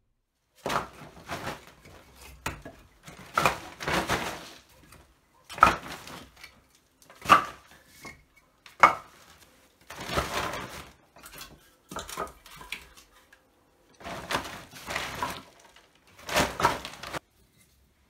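An irregular series of knocks and clatters mixed with longer rustling, scraping noises, with a few sharp knocks in the middle.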